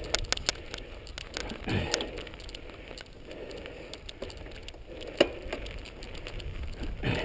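Mountain bike rattling along a dry dirt single-track: irregular clicks and knocks from the bike over the tyre noise, with one sharp knock about five seconds in.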